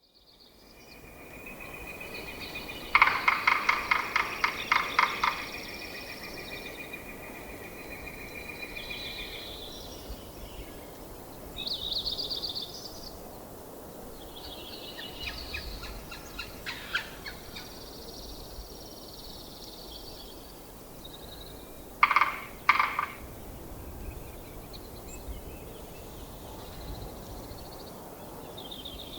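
Yellow-bellied sapsucker drumming on wood: a loud burst of rapid knocks about three seconds in that slows and turns uneven over about two seconds, a fainter run of knocks midway, and two loud single knocks later on. Other songbirds whistle and trill throughout.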